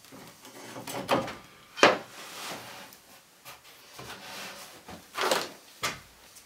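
Handling noise as a Makita circular saw is set down and slid along a plywood guide rail: several knocks and short scrapes of the saw's base plate on the wood, the loudest about two seconds in. The saw's motor is not running.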